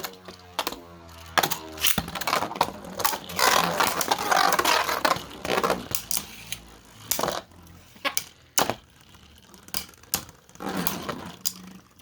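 Two Beyblade spinning tops, one 3D-printed and one plastic Pro Series Valkyrie, battling in a stadium. Whirring gliding in pitch comes first, then scraping and repeated sharp clacks as the tops collide.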